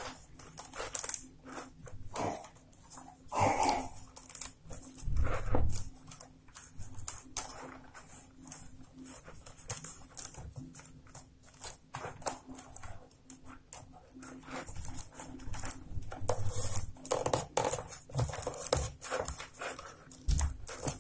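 Rolled-newspaper weaving tubes rustling and scraping as they are threaded and pulled through a tightly woven paper border, in many irregular short crackles with a few dull knocks of handling.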